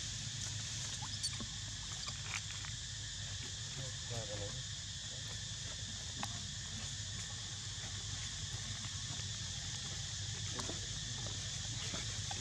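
Steady high buzzing of insects over a low rumble, with a few faint clicks and a short warbling chirp about four seconds in.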